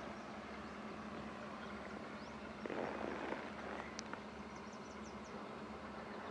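Steady low hum of a passing fire boat's engine across the water, with a brief rush of noise about three seconds in and a few faint high chirps soon after.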